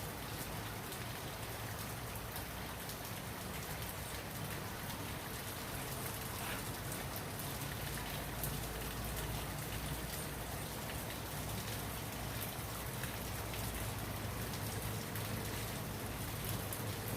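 Steady rain falling, a continuous even wash of sound dotted with many small drop ticks.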